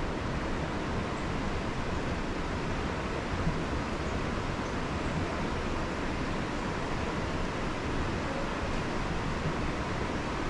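Steady rushing background noise, even and unbroken.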